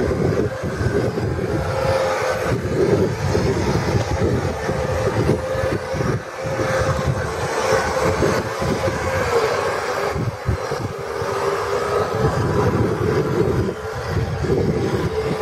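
Wind buffeting the microphone in gusts, over a steady mid-pitched hum from a radio-controlled model tugboat running on the water.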